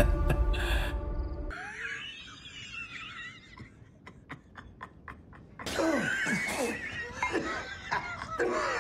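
Film-clip audio of a man laughing, in two stretches, the second longer, with a few sharp clicks between them. Music fades out about a second and a half in.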